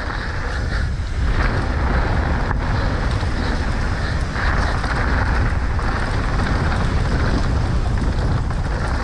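Wind buffeting the rider's camera microphone and tyres rolling over a dirt trail on a downhill mountain bike run, a steady rushing rumble.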